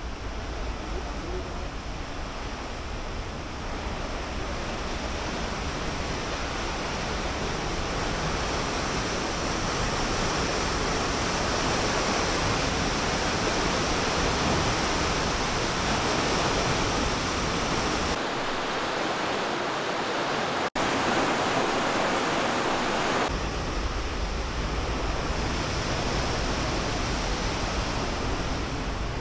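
Rushing river water by the mill's wooden water wheels, a steady, even rush.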